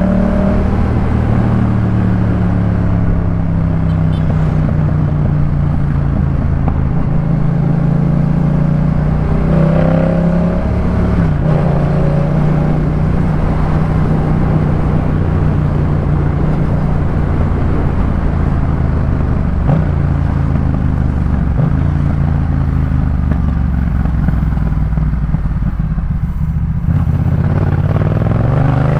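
Yamaha MT-07's 689 cc parallel-twin engine running through a Jeskap K4 full exhaust while the bike is ridden. The engine note falls as the rider eases off, rises briefly about ten seconds in, holds a steady cruising pitch, then climbs again near the end as the bike accelerates.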